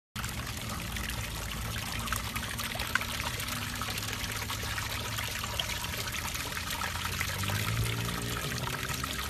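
Water spraying and splashing in a plastic tub as a pug wades in it: a steady rush of water, with a low hum underneath that rises in pitch near the end.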